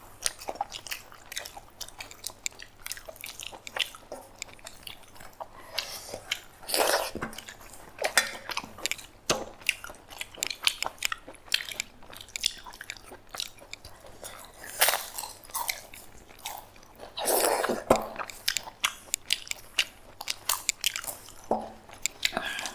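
Close-up eating sounds of a rice-and-curry thali being eaten: steady wet chewing with many short mouth clicks and bites, and a few louder bursts along the way.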